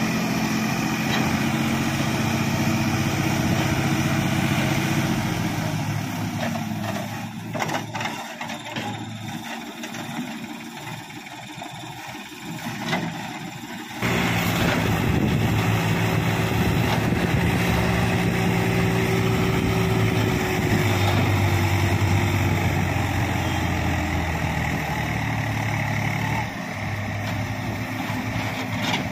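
Diesel engine of a CASE 770EX backhoe loader running as it digs earth and loads a trolley. The engine note rises and falls with the work: it drops a few seconds in, runs quieter with a few knocks, then comes back loud and shifts in pitch in steps.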